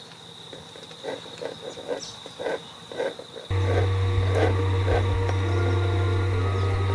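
A steady, high insect trill, like a cricket, with a few soft pencil strokes on a board. About halfway through, background music with a low, sustained drone cuts in abruptly and becomes the loudest sound.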